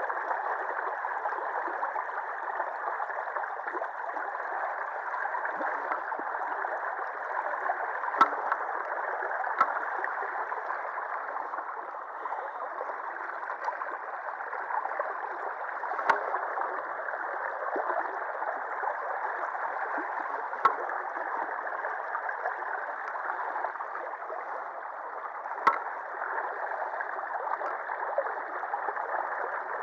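Shallow river water running fast over and around a concrete ledge, a steady rush, with a few sharp clicks scattered through it.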